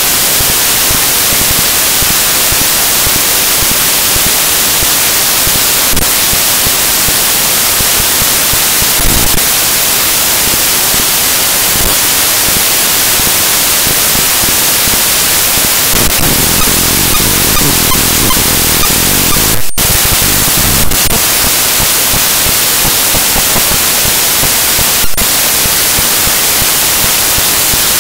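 Loud, steady hiss of static noise, strongest in the high range, with a brief dropout about twenty seconds in and a few faint clicks.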